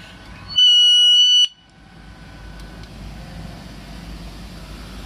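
MEGA AURE-20 portable PA speaker giving one loud electronic beep, a steady high tone just under a second long, as its recording is stopped; a low steady hiss follows.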